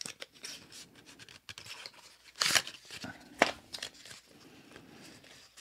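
Small cardboard watch-band package being opened and handled: light scraping, rustling and taps of paper and card. Two louder scrapes come about two and a half and three and a half seconds in.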